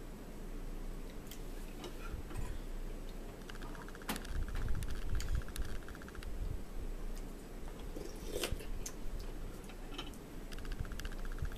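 A smartphone being typed on: scattered light taps and clicks, with short stretches of fast, even ticking. A couple of sharper knocks, about four and eight seconds in, from crackers being handled in a plastic bowl, over a steady low hum.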